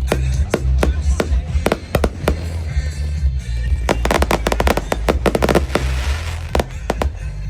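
Fireworks going off in a display: a string of sharp bangs, a rapid flurry of reports about four seconds in, then a crackling hiss. Loud music with a heavy bass plays underneath.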